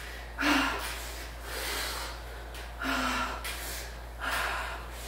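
A woman panting hard from the exertion of pedalling an exercise bike: about four heavy, noisy breaths, roughly one every second and a half, some starting with a short vocal catch.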